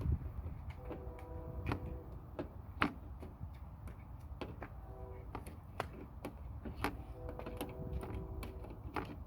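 Irregular metallic clicks and ticks of hand tools slipping and turning on a battery terminal nut and bolt as it is worked loose.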